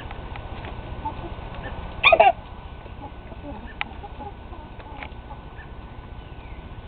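Rooster gives one short, sharp two-part sneeze about two seconds in, followed by a few faint clicks. He sneezes at random, put down to allergies rather than illness.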